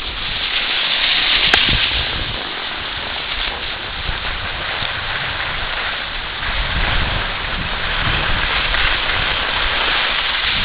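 Skis sliding over packed snow: a steady hiss and scrape, with one sharp click about a second and a half in.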